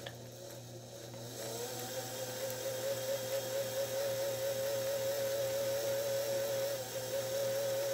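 Singer Style-o-Matic 328 sewing machine running on its electric motor to wind a bobbin: a steady whir that comes up to speed over the first two seconds, then holds with a brief dip near the end.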